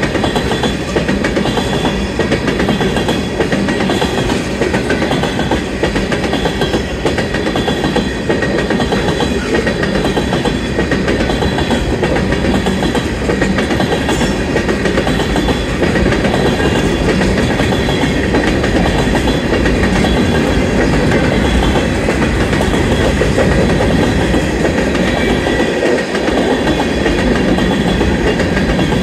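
Freight cars of a Union Pacific manifest train rolling past steadily, with a continuous rumble and rattle and wheels clacking over the rails. A thin, steady high-pitched tone runs through it.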